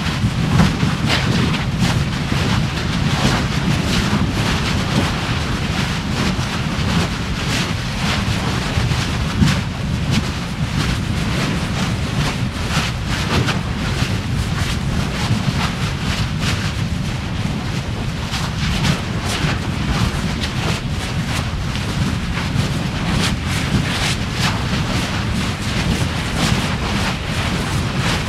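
Volcanic fissure eruption: a steady low rumble with dense irregular crackling, mixed with wind buffeting the microphone.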